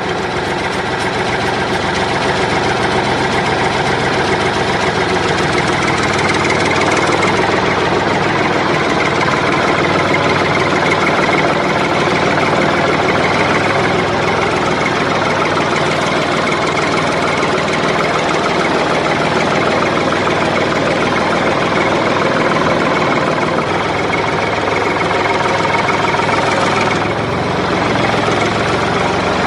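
Engine of a homemade mini tractor model running steadily, with a slight dip in level about 27 seconds in.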